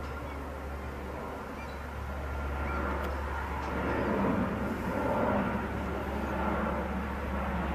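Jet airliner flying past, its engine noise a steady rumble that swells louder about halfway through.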